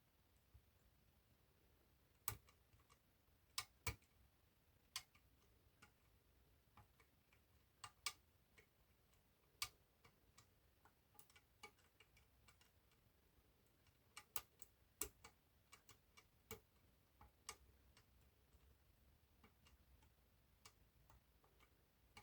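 Small metallic clicks and ticks at irregular intervals from lock picks working the levers of an eight-lever lever lock, a few sharper clicks standing out among fainter ones.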